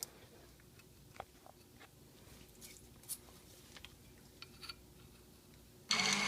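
Scattered faint clicks and taps of wires and clips being handled, then near the end the rear caliper's electric parking-brake motor starts whirring steadily, run straight off a battery with reversed polarity to retract the brake piston.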